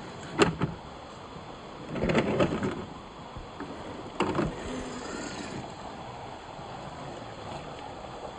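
1/10-scale RC crawler truck (FMS Toyota Land Cruiser FJ40) knocking and clattering over rocks. There are two sharp knocks about half a second in, a longer rattle around two seconds and another knock near four seconds, over a steady background of running water.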